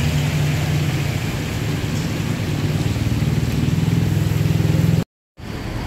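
Whole fish deep-frying in a wok of oil, sizzling and bubbling steadily over a constant low rumble. The sound cuts off suddenly about five seconds in, giving way to quieter street noise.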